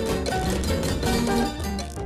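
Music: quick, short notes over a steady beat.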